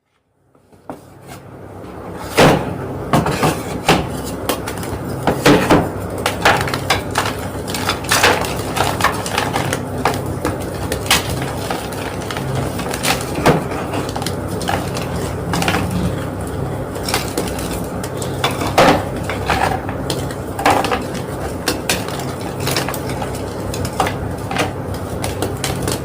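A homemade gym chalk block being crushed and crumbled, making a dense, irregular run of crisp crunches and crackles with sharper snaps every second or so. The sound fades in over the first couple of seconds, over a steady low hum.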